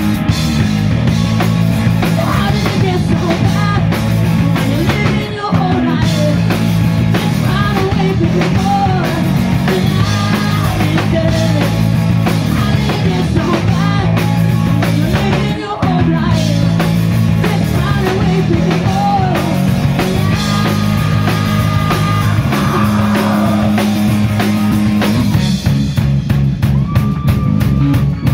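Rock band playing live, with drums, bass and electric guitar and a singer.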